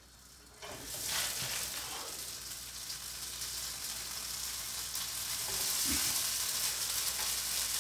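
Noodles hitting hot oil in a nonstick frying pan and sizzling: the sizzle starts about a second in as they go in and carries on steadily, growing a little, with a soft knock about six seconds in.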